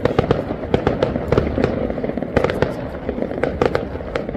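Fireworks display going off: many sharp cracks and bangs, several a second at irregular intervals, over a continuous low background noise.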